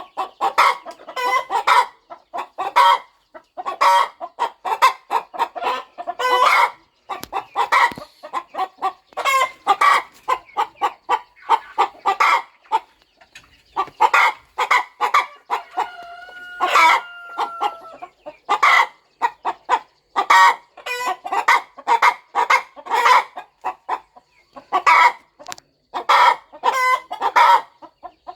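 Broody hen clucking in quick runs of short clucks, with one long, steady call held for about two seconds just past the middle.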